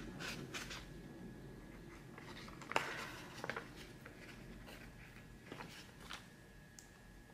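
Faint rustle and crinkle of a paper sticker sheet being handled and a sticker peeled off its backing, with a few soft clicks and taps, the loudest a little under three seconds in.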